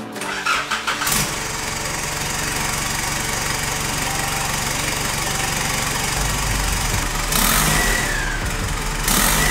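Isuzu 4JJ1 four-cylinder turbo-diesel, swapped into a Nissan GU Patrol, cranking and catching on its first start after the conversion, then idling steadily. Near the end it is revved briefly twice, each rev followed by a whistle falling in pitch.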